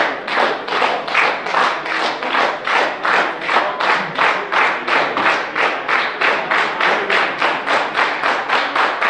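A crowd clapping in unison, a steady rhythm of about three claps a second.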